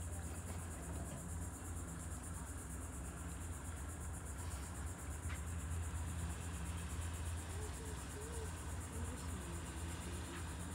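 Outdoor ambience on open water: a steady, high, evenly pulsing chirr of insects over a low steady rumble, with faint distant voices in the second half.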